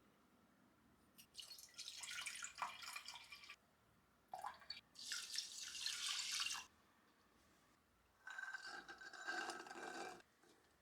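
Water running from a kitchen tap in three short bursts, each about two seconds long, with quiet pauses between.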